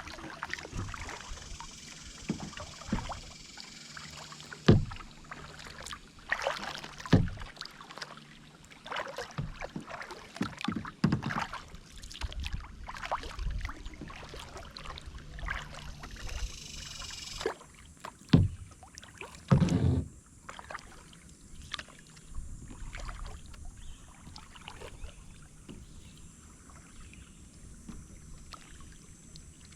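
Kayak paddling: paddle blades dipping and splashing in the water at an uneven pace, with several louder thumps.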